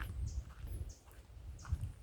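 Footsteps crunching on a dirt trail at a walking pace, about two steps a second, over a low rumble of wind or mic handling.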